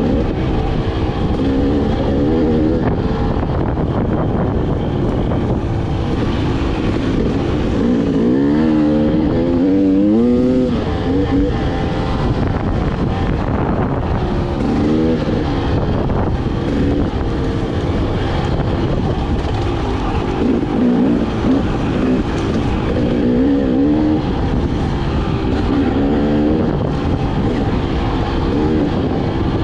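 Dirt bike engine running under constantly changing throttle, its pitch rising and falling again and again, with the widest swings about a third of the way in.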